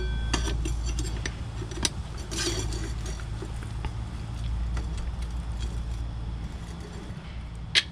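Light metallic clinks and rattles of bolts and steel brake-mount parts being handled and fitted, with a cluster of clinks about two and a half seconds in and a sharper one near the end, over a steady low hum.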